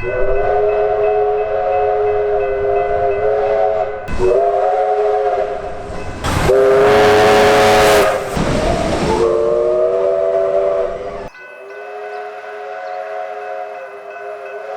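Australian train's multi-note air horn sounding several long blasts in a row, several notes at once, each blast sliding up slightly as it starts. A loud rush of passing-train noise covers it for a second or two in the middle, and the rumbling background drops away suddenly about eleven seconds in while the horn carries on.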